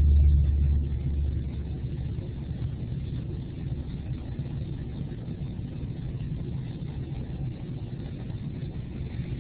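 A deep rumble that is loudest for the first second and a half, then settles into a steady low background rumble.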